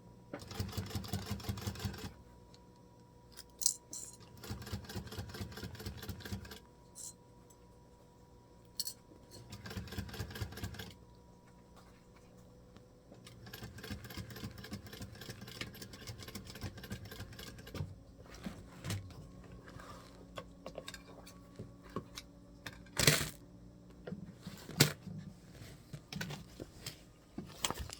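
Sewing machine stitching leather in three short bursts of rapid, even clicking, with quieter handling of the leather and a few sharp clicks and knocks in the second half.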